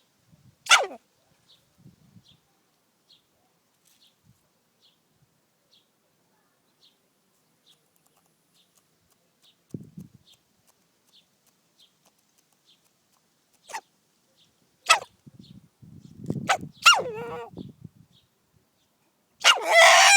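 Rooster sneezing after choking on a grain: short, sharp sneezes, one about a second in and then several more close together after a long pause. A louder, longer pitched burst comes right at the end.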